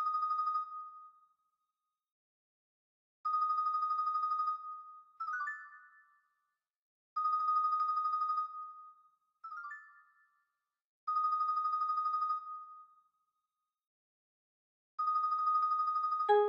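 Computer-rendered marimba (MuseScore 2 sound set) playing a fast tremolo on one high note, about a second and a half at a time and repeated roughly every four seconds, so that it sounds like a phone ringing. A few soft single notes fall in the silent gaps. Just before the end, a loud passage comes in with low notes.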